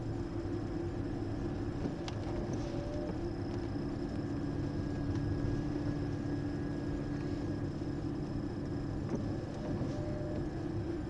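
Mercedes-Benz car driving slowly on a wet road, heard from inside the cabin: a steady engine and tyre hum with a few faint clicks.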